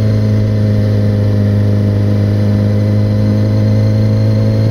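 Suzuki GSX-R600 sport bike's inline-four engine running at a steady, unchanging speed while riding.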